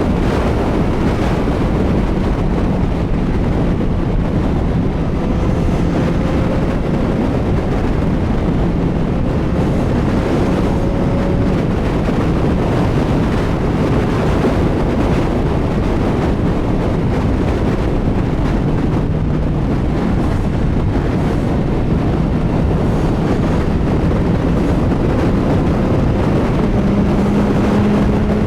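CFMoto 675SR-R's inline-three engine running at a steady highway cruise, mostly buried under heavy wind rush on the microphone, with only a faint engine hum showing through.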